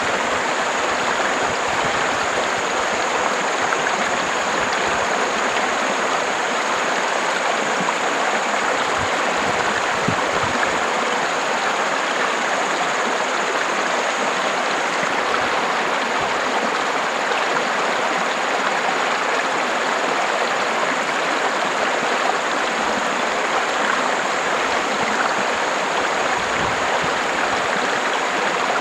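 River water flowing, a steady, even rush of water with no pauses.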